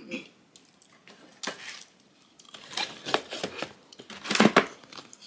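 Irregular crisp crunching and crackling as a chicken-shaped ice cream piece with a crunchy coating is bitten and chewed. The loudest burst of crackling comes near the end, along with rustling of the cardboard bucket's lid as it is pressed shut.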